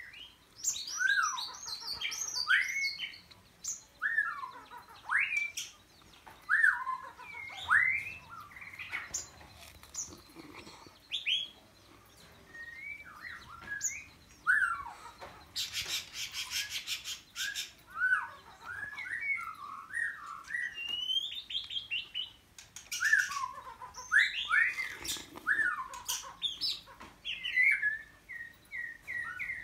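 White-rumped shama singing: a long run of varied whistled phrases, swooping up and down in pitch, broken by short pauses. A harsh rapid rattle comes twice, a longer one near the middle and a brief one later.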